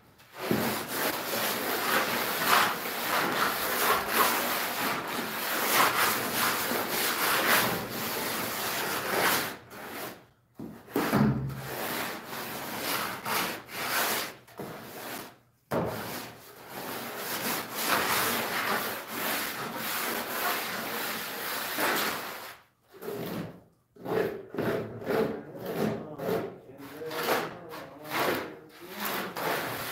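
Hand trowel scraping and smoothing a sandy mortar floor bed. It comes in long stretches of steady rubbing with a few short pauses, then turns to quick short strokes near the end.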